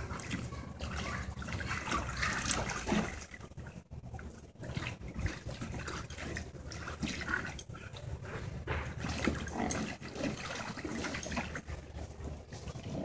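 Two huskies playing in a shallow plastic wading pool: water splashing and sloshing irregularly as they scuffle, mixed with their play growls.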